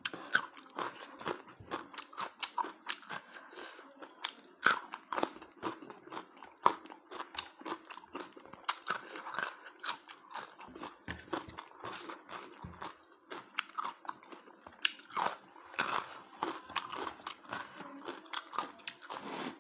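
A person eating close to the microphone: chewing and biting with frequent crunches and wet mouth clicks at an irregular pace.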